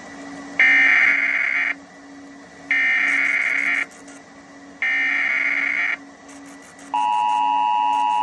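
Emergency Alert System tones: the SAME digital header, three harsh warbling data bursts of about a second each. Then, near the end, the steady two-tone EAS attention signal begins.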